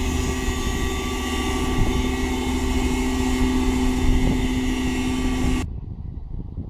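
Self-propelled field sprayer running steadily as it drives along spraying the crop: an even engine hum with several steady higher tones over a low rumble. About five and a half seconds in it cuts off abruptly, leaving only a low rumble.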